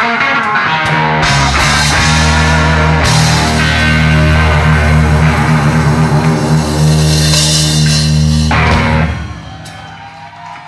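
Rock band playing live, with loud electric guitar and drums. About eight and a half seconds in the band stops on a final hit, and the sound then dies away.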